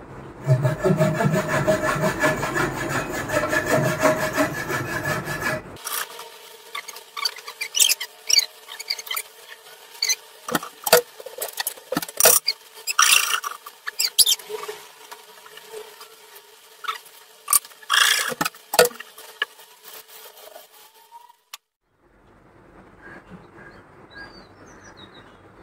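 Hand file rasping back and forth on a wooden instrument neck, a steady scraping, for the first few seconds. From about six seconds in come irregular sharp clicks and taps of small tools on the wood, then faint noise near the end.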